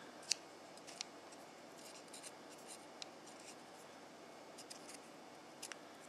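A few faint clicks and light scrapes of a digital caliper's steel jaws being slid and set on a metal hinge shaft, the sharpest click just after the start, over low room hiss.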